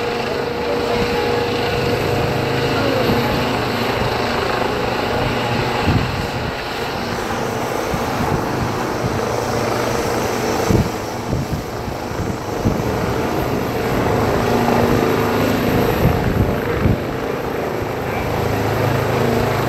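Helicopter rotor and engine noise, steady throughout, as the helicopter hovers low and comes in to land, with a few brief louder thumps along the way.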